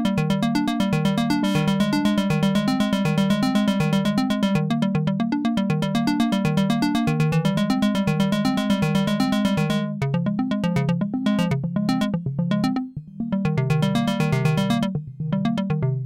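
Dave Smith Mopho x4 four-voice analog synthesizer playing its "Crystal" preset: a fast, even stream of bright pulsing notes over a lower moving line. About ten seconds in the top end falls away and the notes turn choppy with short gaps, then stop at the end.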